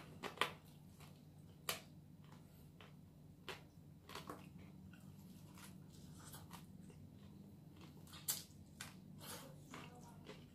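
Faint chewing of crispy fried chicken and rice, with a scattered handful of sharp crunches and mouth clicks over a steady low hum.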